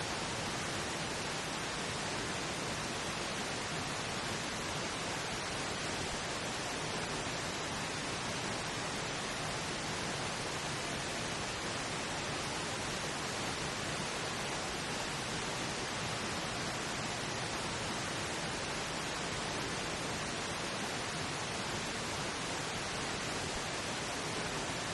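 Steady, unchanging pink noise, a subliminal track meant to mask layered affirmation recordings.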